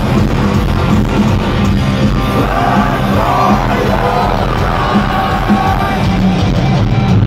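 A heavy metal band playing live, with electric guitars, drums and a singing voice, heard from the crowd in a large hall.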